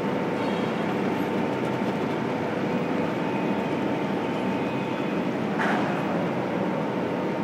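Bitumen sound-deadening production line running: a steady machinery din with a faint constant hum. A short hiss breaks in about five and a half seconds in.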